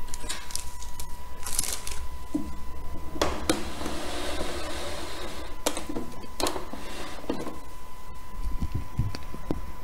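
Baking paper rustling and crinkling as it is handled and laid along knit wool fabric, with a few sharp clicks and taps on the tabletop. Near the end, a few low thumps as the sewing machine is shifted into place on the table. A faint steady high tone sits underneath.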